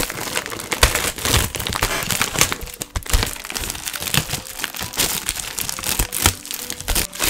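Clear plastic wrap crinkling and crackling irregularly as hands handle and unwrap a folded wooden tabletop easel.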